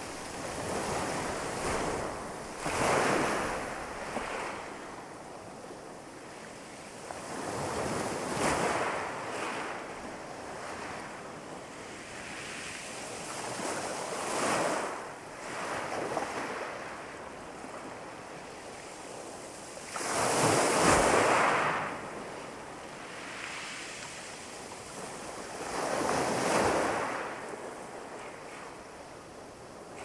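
Small sea waves breaking on a pebble beach: five swells wash in and draw back, roughly one every six seconds, over a steady sea hiss. The one about two-thirds of the way through is the loudest.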